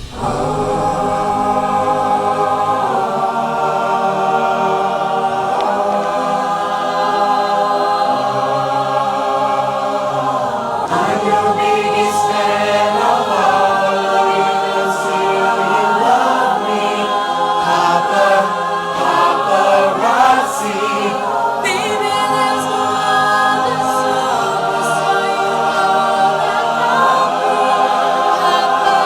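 A high-school show choir singing held chords without accompaniment, the chords changing every few seconds.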